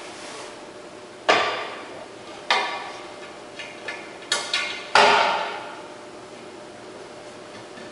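Hard parts being handled and set down on a workbench as force gauges are fitted to their mounting screws. About seven sharp clunks and clicks, the loudest just over a second in and about five seconds in, each ringing briefly.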